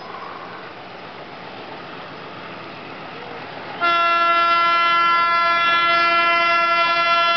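Horn of the Pakistan Railways PHA-20 diesel-electric locomotive, sounding one long, steady blast that starts suddenly about four seconds in. Before it there is only faint background noise.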